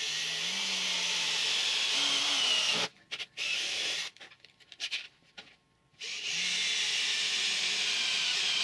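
Ryobi cordless drill boring holes through a thin metal plate. It runs steadily for about three seconds, gives a few short stop-start bursts, then runs steadily again for about three seconds.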